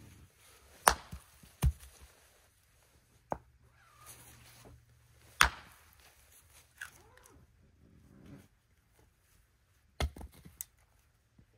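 Hatchet splitting firewood on a stump chopping block: about six sharp chops spread out, the loudest about a second in and about five seconds in.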